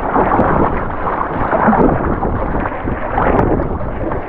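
Wind buffeting the microphone over rushing, splashing water as a kayak is paddled on open sea; the noise swells and eases unevenly.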